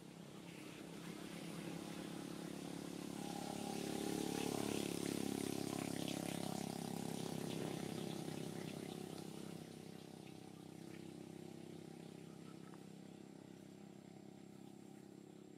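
A motor vehicle passing, its engine sound building over a few seconds, peaking, and then fading away.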